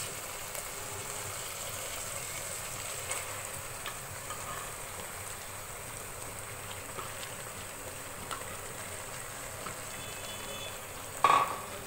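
Spiced chicken curry sizzling steadily in a frying pan as soaked split lentils are tipped onto it, with a few faint ticks and a short louder spatula scrape near the end.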